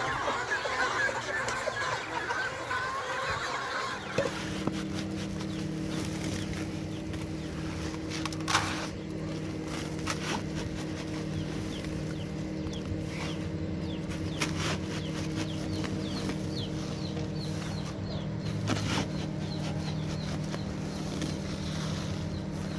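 Chickens clucking for the first few seconds. After that a steady low hum takes over, with faint high chirps and a couple of sharp knocks.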